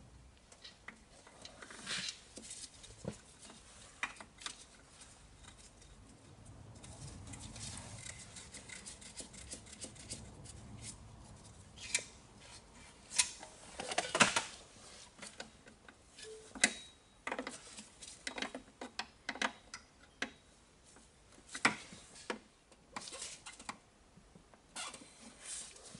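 Metal hand tools and parts clicking and clinking in irregular taps and knocks, with a few sharper knocks about thirteen and fourteen seconds in.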